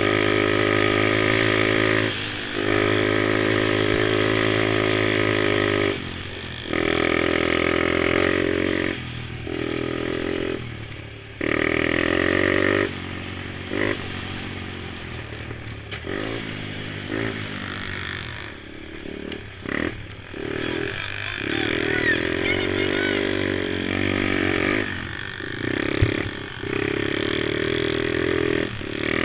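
Small engines of mini quad ATVs racing, buzzing at high revs. The throttle is cut sharply and reopened every few seconds, as for corners.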